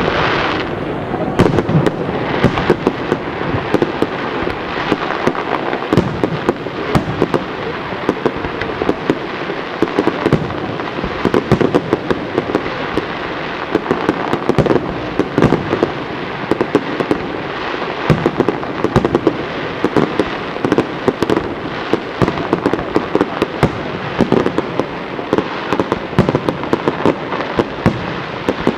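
Aerial fireworks display firing without pause: a dense stream of shell bursts and sharp bangs, several a second, with no let-up.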